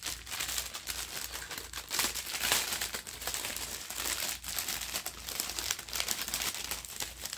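Clear plastic packaging crinkling and rustling as it is handled and opened, in irregular crackles.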